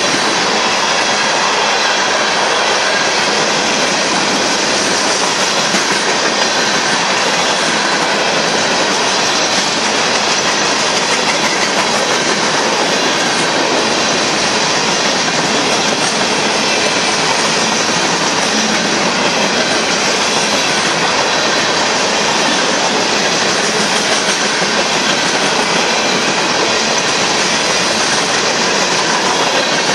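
A BNSF coal train's open-top hopper cars rolling past a grade crossing: steel wheels running on the rails make a steady, loud noise.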